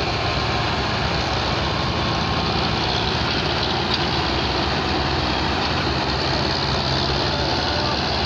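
Farm tractor diesel engines running steadily, a low continuous engine sound with no changes or sharp events.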